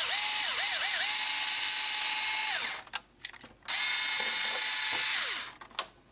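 Small 4-volt cordless electric screwdriver drilling holes in a thick RC truck body, in two runs: a steady motor whine with grinding noise, its pitch dipping a few times at the start of the first run as the motor bogs, a pause with a few clicks, then a second shorter run.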